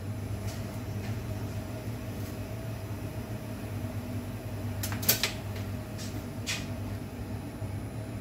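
Steady low machine hum, with a few faint clicks about five seconds in and one more about a second and a half later.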